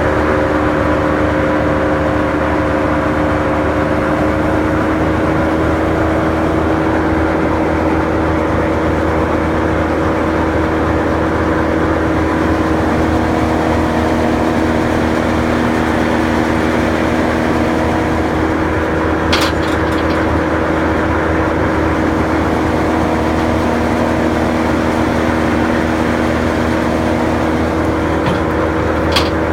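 Morbark Hurricane 18 drum chipper running, its 240 hp Caterpillar turbo diesel engine holding a steady speed that rises slightly about five seconds in. Two sharp clicks, one about two-thirds of the way through and one near the end.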